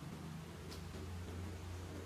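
Quiet room tone: a steady low hum and faint hiss, with one faint click under a second in.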